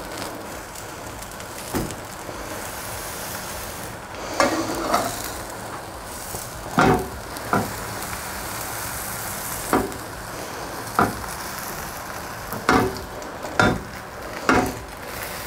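Sandwiches sizzling as they toast on a hot flat griddle pan, with a slotted metal spatula knocking and scraping against the pan about nine times as they are pressed.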